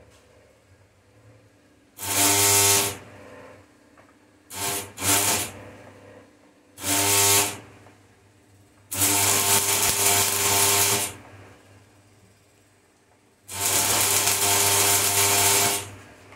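Stick arc welder laying short welds on steel angle-iron brackets: six bursts of crackling, buzzing arc, each starting and stopping abruptly, two brief ones close together early on and the two longest, about two seconds each, in the second half.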